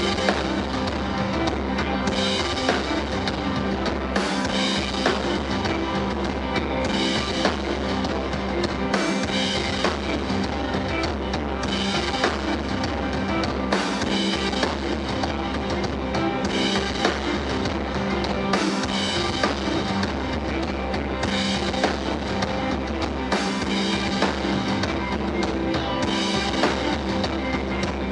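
Rock band playing live: two electric guitars over bass guitar and a drum kit. The drums and bass come in right at the start, after guitar alone.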